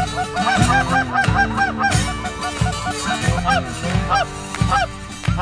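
Canada geese honking, a fast run of calls that thins to scattered honks after about two seconds, over background music with a steady beat.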